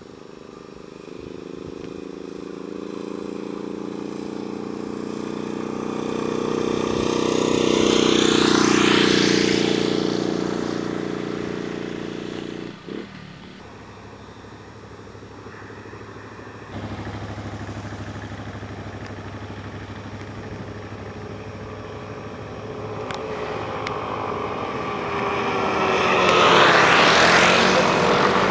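Motorcycle engines passing on a road, each swelling as it comes near and fading as it goes, with a drop in pitch as one passes close near the end. The sound breaks off abruptly about thirteen seconds in.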